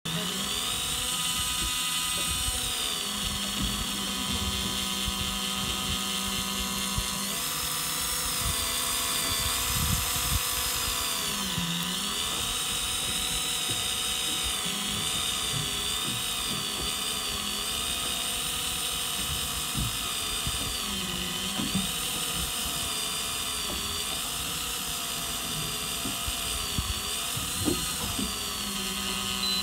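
Electric fishing reel's motor whining steadily as it winds in line against a hooked fish on a hard-bent rod. The whine's pitch dips and recovers again and again as the fish pulls against it.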